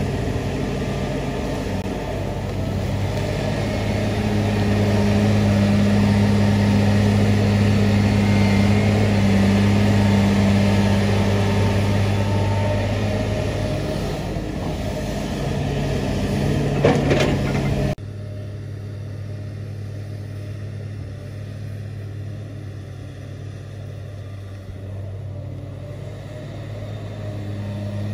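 Komatsu PC350LC hydraulic excavator's six-cylinder diesel engine running steadily under load as it digs, a loud low drone, with a brief sharp squeal a little before the two-thirds mark. About two-thirds through, the sound drops suddenly to a quieter, duller engine drone.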